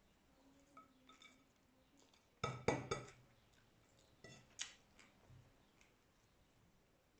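Tableware being handled during a meal: a quick flurry of clinks and taps about two and a half seconds in, with a few more just after the middle.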